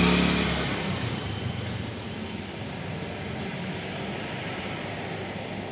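Street traffic: a passing motor vehicle's engine fades away over the first couple of seconds, leaving a steady hum of traffic noise.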